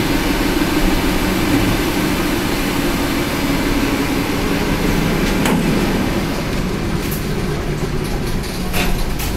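ET2M electric multiple unit running at speed, heard from inside the car: a steady rumble of wheels on the rails with a low hum. There is a sharp click in the middle and a few more near the end, and the hiss softens a little after about six seconds.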